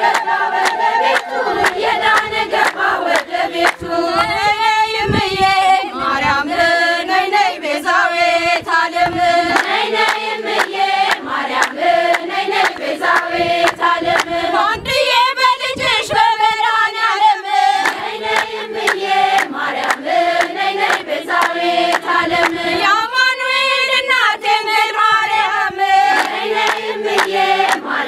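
A group of women singing an Ethiopian Orthodox hymn together, with steady hand clapping.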